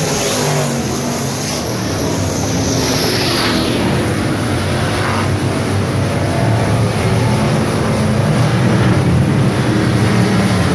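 Pack of dirt-track street stock race cars at racing speed, their engines revving and droning together as they circle the oval. The sound swells louder in the second half as the pack comes around the turn toward the microphone.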